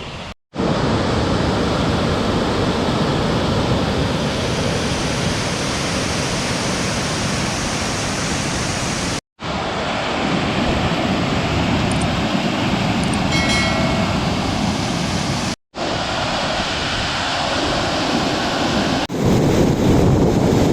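Waterfall's water pouring and crashing, a steady rushing roar, broken by three brief dropouts where the footage is cut.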